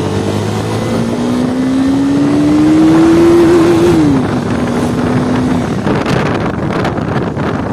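KTM Duke 390's single-cylinder engine accelerating, its pitch climbing steadily, then dropping with an upshift about four seconds in and holding briefly. Near the end the engine tone fades under rushing wind noise on the microphone.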